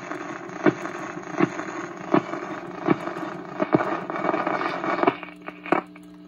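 Admiral 78 rpm record changer with its stylus riding the end groove of a shellac record: surface hiss with a sharp click about every three-quarters of a second, once per turn of the disc, because the changer has not tripped its reject. About five seconds in the hiss and clicks stop as the tonearm is lifted, leaving the radio-phonograph's amplifier hum.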